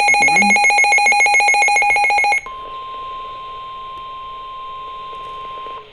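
A rapidly pulsing electronic alarm beep for about two and a half seconds, then a single steady tone held for about three and a half seconds that cuts off sharply. This is the emergency alert attention tone that announces a severe thunderstorm warning broadcast.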